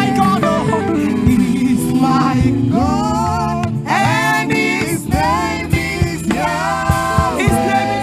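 Gospel praise music: a voice singing long, held phrases over a steady instrumental backing with a regular drum beat, the singing coming in strongly about two and a half seconds in.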